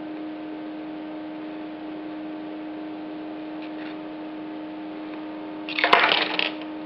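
Steady electrical hum with a few even overtones. About six seconds in, a short loud rustle with a sharp click.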